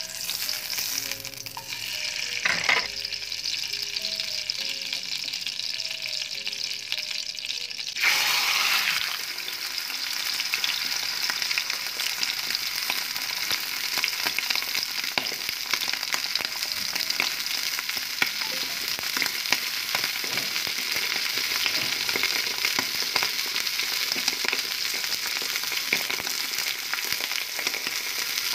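Fat sizzling in a stainless steel pan; about eight seconds in the sizzle suddenly grows louder as sliced liver goes into the hot fat, then runs on as steady frying with crackling pops.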